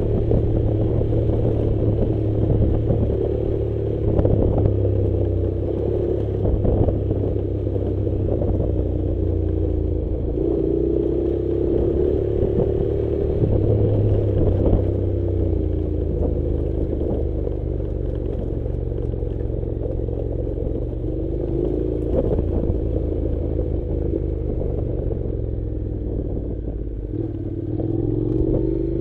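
Honda NC700's parallel-twin engine running at low revs on a rocky dirt-track descent, its pitch rising and falling gently, with tyre noise over gravel and scattered knocks and rattles as the bike rolls over stones.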